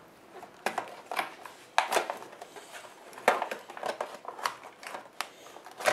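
A Hot Wheels blister pack being handled and pried at by a child's hands: irregular clicks and crackles of the plastic blister and cardboard backing card.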